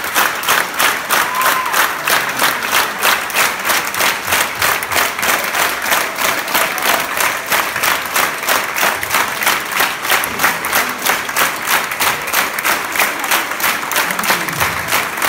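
A large crowd clapping in unison: steady rhythmic applause at roughly two to three claps a second.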